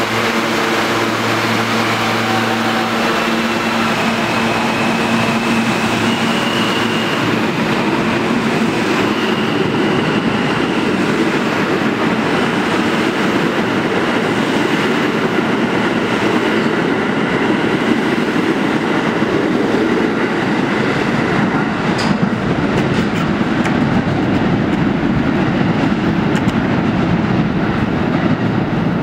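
R160 New York City subway train pulling out of the station: a steady hum and a faintly rising whine as it starts to move, giving way to the continuous noise of its cars and wheels running past on the rails, with one sharp click a little over twenty seconds in.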